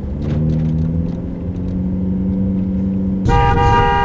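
Car engine revving up and holding at high revs, then a loud horn blast begins about three seconds in.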